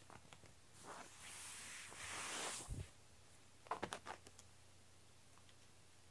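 Soft hissy rustle of a cat-teaser wand's cord swishing and dragging over a foam play mat for a couple of seconds, ending in a dull thump as the cat pounces. About a second later comes a quick run of light taps from its paws striking at the cord.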